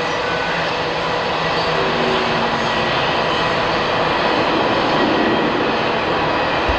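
Freight train rolling past, a loud, steady rumble of its wheels on the rails.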